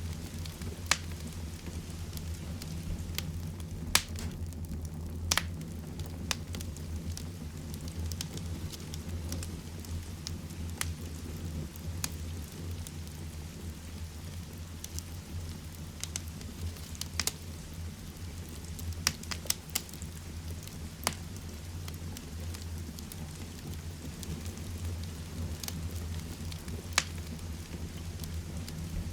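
Heavy rain falling steadily, a deep, even rush, with a fireplace fire crackling over it in sharp, irregular pops every second or two.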